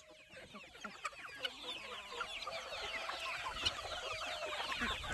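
A large flock of free-range chickens clucking and chirping at once as they crowd in at feeding time: many short overlapping calls that grow gradually louder.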